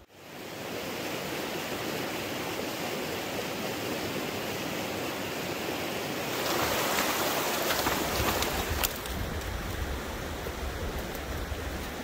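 Mountain creek rushing over rocks: a steady rush of water that swells louder about six seconds in. A low rumble joins about two seconds later.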